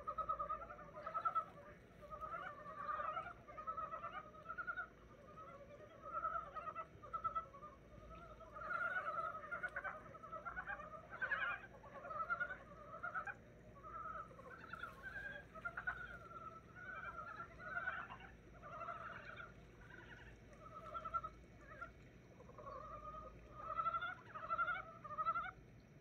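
A chorus of frogs calling in early spring, just out of hibernation: many short, rough croaks overlapping without a break, several a second.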